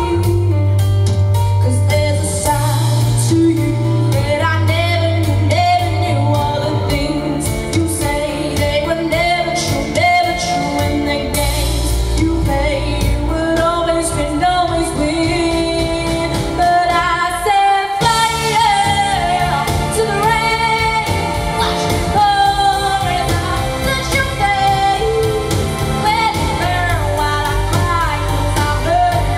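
A woman singing a pop ballad solo into a microphone, her voice amplified, over instrumental accompaniment with a steady bass line. The accompaniment drops out for a moment about 18 seconds in.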